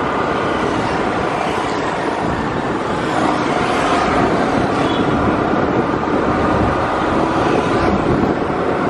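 Steady road and wind noise from riding a motor scooter on wet asphalt, with the scooter's engine humming underneath.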